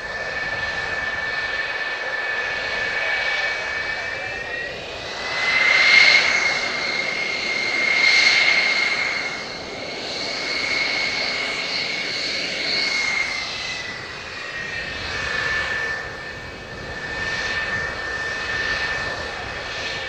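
Twin J79 turbojets of an F-4EJ Kai Phantom II taxiing: a high, steady whine over a jet rush. The whine climbs in pitch about five seconds in, swells louder around six and eight seconds, and drops back near fifteen seconds.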